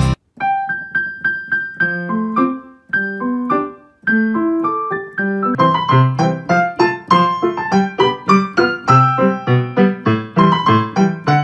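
Background piano music: a light melody of single struck notes at first, growing fuller with chords and a bass line from about halfway.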